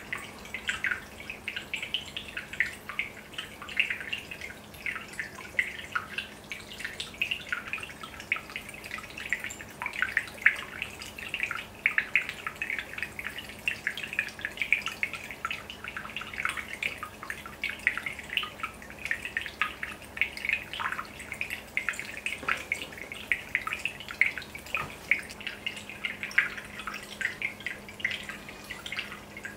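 Aquarium aeration bubbles rising and breaking at the water surface: a continuous, irregular patter of small drips and pops, over a steady low hum.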